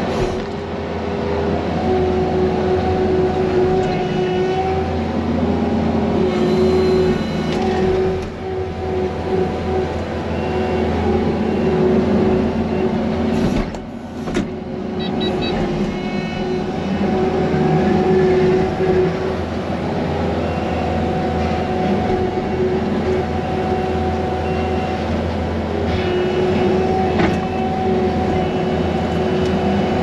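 Diesel engine of a Kubota compact track loader running steadily, heard from inside the cab while it pushes through brush and clears ground. A higher tone above the engine hum comes and goes as the machine works.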